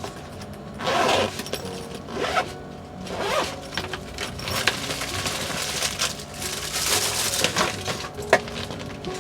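Background music with several brief rustling or handling noises over it.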